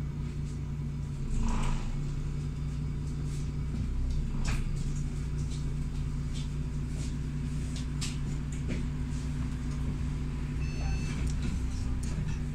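City bus heard from inside the cabin: its engine and drivetrain running with a steady low hum as it rolls along, with a few short rattles from the interior. A brief high electronic beep sounds near the end.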